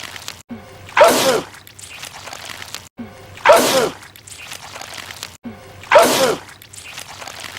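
A man's sneeze played over and over: three identical sneezes about two and a half seconds apart. Each starts with a sharp burst, slides down in pitch and then tails off, with a short dead gap just before it where the loop restarts.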